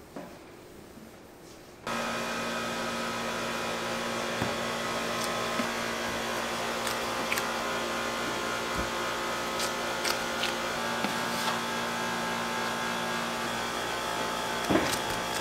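A machine motor comes on suddenly about two seconds in and runs steadily, a hum of several steady tones, with scattered light clicks and knocks over it and a louder knock near the end.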